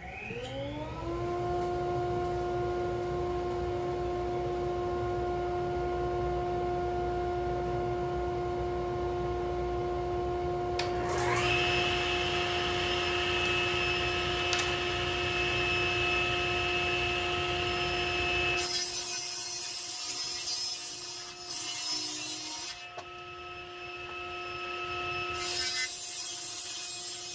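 Jet 10-inch table saw motor starting and spinning up, then running steadily with a steady whine; about eleven seconds in, a second, higher whine joins it. Later the blade rips along a 2x4 twice to trim off its edge, each cut a loud, rough sawing noise over the motor.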